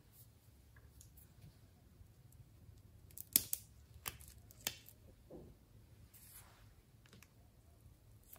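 Small scissors snipping through the tip of a plastic piping bag: four short, sharp snips between about three and five seconds in.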